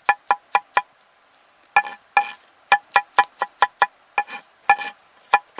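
Knife blade chopping prickly pear fruit on a flat stone, dicing it into a paste. Each stroke strikes the stone with a short metallic ring, about three or four a second, with a pause of about a second near the start.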